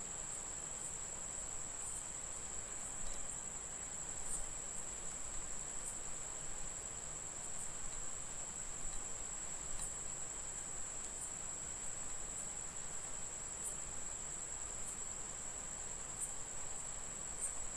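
A steady, high-pitched whine, faint but unbroken, with soft ticks every second or so.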